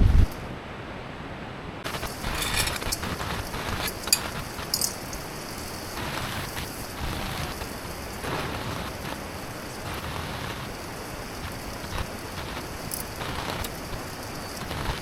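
Rain falling steadily, with many sharp patters and taps of drops striking a surface. A low thump of wind on the microphone right at the start.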